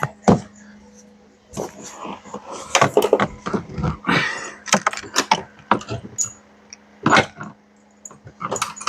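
Irregular knocks and clinks of hand tools on metal parts while wrenching in a car's engine bay, over a faint steady hum.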